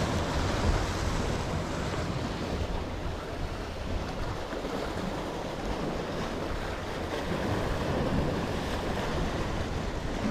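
Sea waves washing against the rocks of a breakwater, with wind buffeting the microphone: a steady rushing noise with no separate events.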